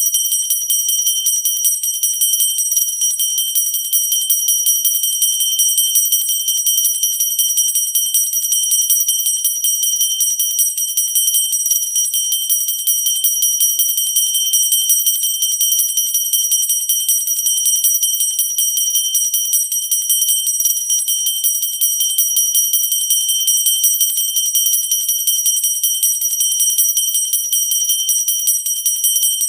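Pooja bell rung continuously and fast: a steady, high-pitched ringing with the clapper striking many times a second, without a pause.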